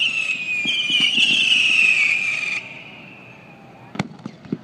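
Whistling fireworks: a loud, high whistle that slowly falls in pitch and cuts off abruptly about two and a half seconds in, with faint pops underneath. About four seconds in comes a sharp firework bang, and a smaller one just after.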